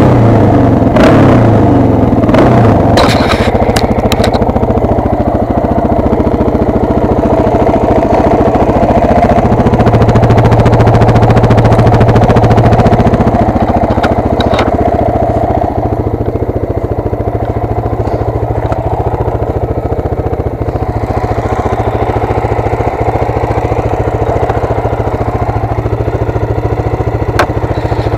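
Freshly rebuilt Suzuki DR-Z400's single-cylinder four-stroke engine running as the bike is ridden, its pitch rising and falling, then settling to a steadier, slightly quieter idle after the halfway point. A few sharp knocks in the first few seconds.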